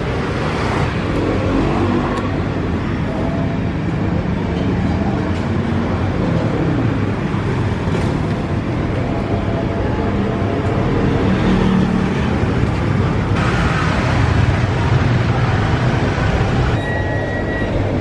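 Busy street traffic, with scooters and cars passing close by in a steady din of engines and tyres.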